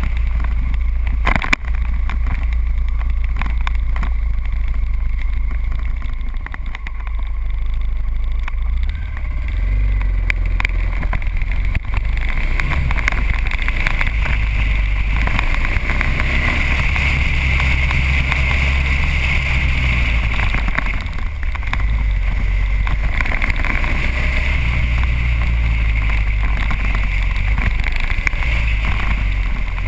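Motorcycle riding along at steady speed, its engine running under heavy wind rumble on the bike-mounted microphone, with a single knock about a second and a half in.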